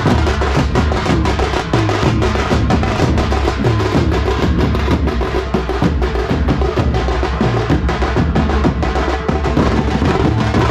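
Tasha drum band in full play: many tasha drums struck with thin sticks in fast, dense strokes and rolls over large bass drums, a continuous loud driving rhythm with no breaks.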